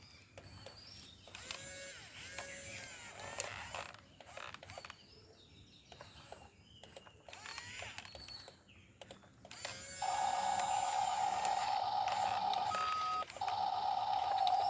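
A quiet stretch with faint scattered sounds. About ten seconds in, a steady, wavering electric whine starts, like a small motor running under load. It pauses briefly near the end, then resumes.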